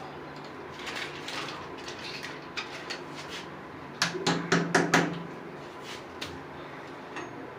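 Hard clinks and rattles of tools and small metal parts being handled, with a quick run of loud sharp knocks about four seconds in.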